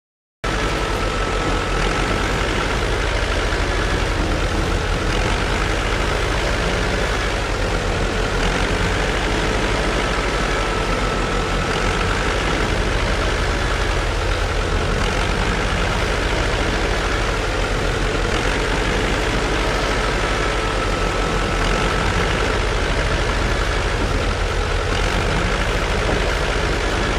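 Engine idling steadily: an even low throb with a faint steady whine above it.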